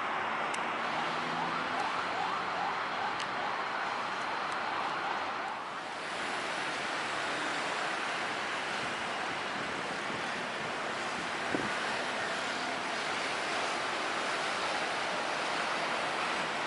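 Steady roar of aircraft jet engines from the nearby runway, dipping briefly about six seconds in.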